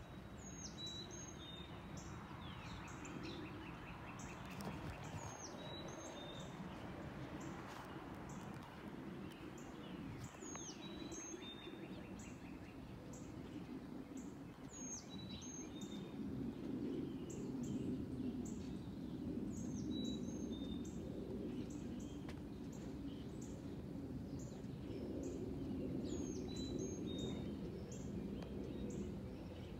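Distant jet rumble from a UPS Boeing 767-300 freighter passing high overhead, growing louder in the second half. A bird repeats a short high chirp every four to five seconds.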